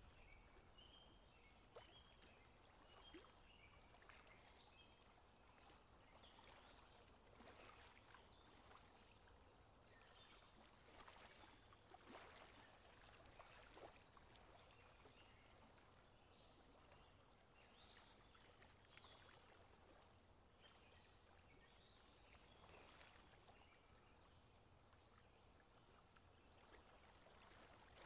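Near silence: faint river ambience, a soft sound of moving water with scattered faint high chirps.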